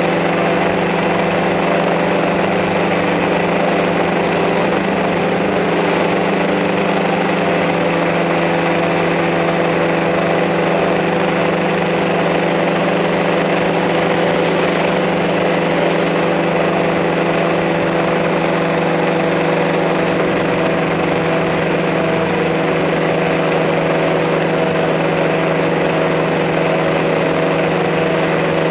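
Multirotor drone's electric motors and propellers running at a steady hover, a constant multi-tone hum.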